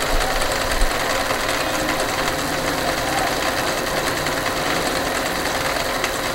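Electric domestic sewing machine running steadily on its own, stitching a decorative embroidery pattern.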